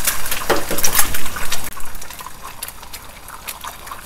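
Eggs frying in hot oil in a nonstick frying pan: as another egg goes in, the oil sizzles and spatters loudly with dense crackling for about two seconds, then settles to a softer crackle.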